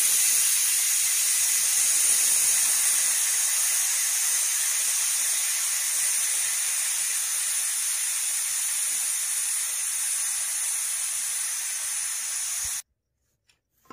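Pressure cooker venting steam in a steady, loud hiss as its weight valve is held up with a ladle, releasing the pressure after cooking. The hiss stops abruptly near the end.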